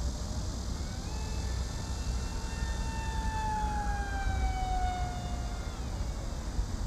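HEE Wing F-01 flying wing's electric motor and propeller whining in a high-speed pass: a high-pitched tone that swells, then drops in pitch as the wing goes by and fades. Low wind rumble on the microphone underneath.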